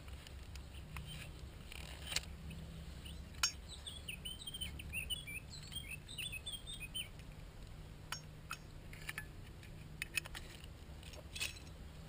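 Small clicks and rustles of hands working steel wool and the metal insert of a Zippo lighter, with sharper clicks about two and three and a half seconds in and more near the end. A bird chirps in quick runs from about three and a half to seven seconds in.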